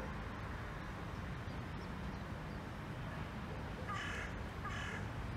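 Diesel locomotive engine running with a steady low rumble. A crow caws twice near the end, harsh calls under a second apart.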